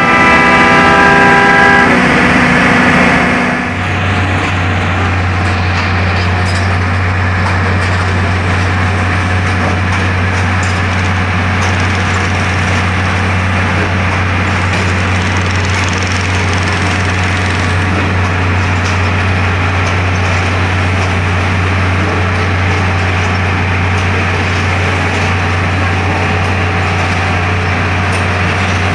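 A horn-like tone sounds for about the first two seconds. Then a track-laying machine runs with a steady low engine drone and constant mechanical noise while it lays rails.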